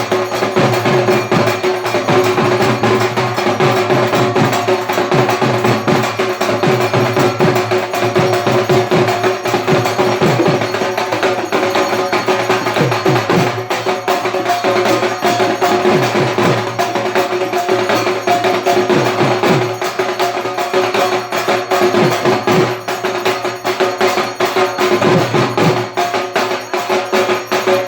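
Dhak drums beaten fast with sticks in the traditional Durga Puja rhythm, dense sharp strokes over low, falling drum tones, with a steady ringing tone running alongside.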